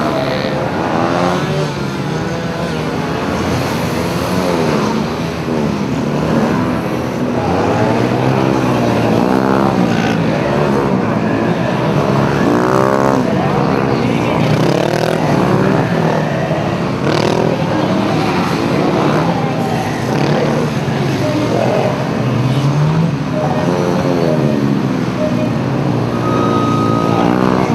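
Honda CB250R's single-cylinder engine, fitted with an aftermarket silencer, revving up and dropping back again and again in short bursts of throttle as the bike is flicked through tight turns. A brief steady beep sounds near the end.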